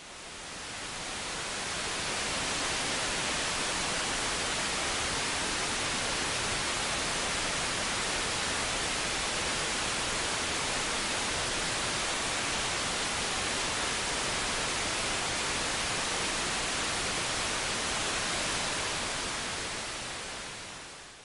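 Meteor-M2 weather satellite's LRPT digital downlink at 137.1 MHz, received on a software-defined radio and demodulated as wideband FM: a steady, even hiss. It fades in over the first couple of seconds and fades out at the end.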